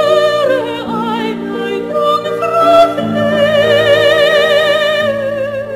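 Background music: a voice sings long, wavering vibrato notes in an operatic style over sustained chords that change twice.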